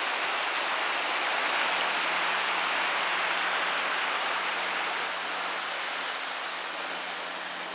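Creek water rushing steadily over a small waterfall at a stream crossing, easing off a little in the second half. A faint steady low hum sits underneath.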